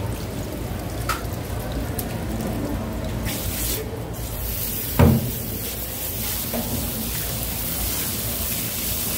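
Handheld pressurised water spray nozzle hissing as its jet rinses a gutted fish on a plastic cutting board, starting about a third of the way in and running on steadily. A single loud thump about halfway through.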